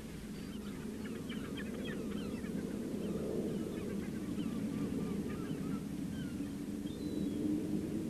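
Dense chorus of a large seabird colony, chiefly northern gannets: a steady mass of harsh, low calls, with many short, higher calls scattered over it.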